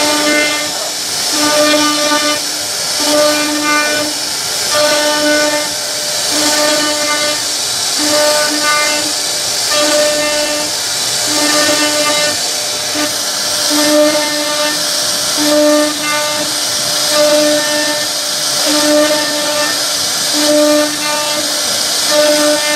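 CNC wood router carving a repeating decorative motif into a wooden panel: the spindle and bit give a steady high hiss of cutting wood. A short humming tone from the machine's axis motors recurs about once a second as the head retraces the pattern.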